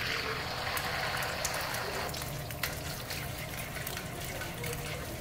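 Beaten eggs hitting hot oil in a wok: a loud hiss for about the first two seconds that settles into a quieter sizzle with scattered crackling pops.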